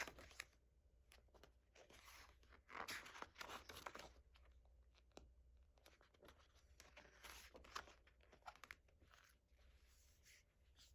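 Faint rustling of paper and card as album inserts and photocards are handled, in a few short bursts.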